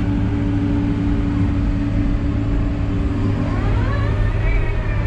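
Feller buncher's diesel engine running steadily, heard inside its cab. A hydraulic whine rises and then falls near the end as the machine swings.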